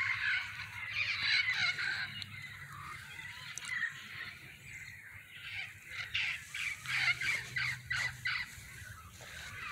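Wild parrots calling, many short calls in quick succession, with a busier run in the second half.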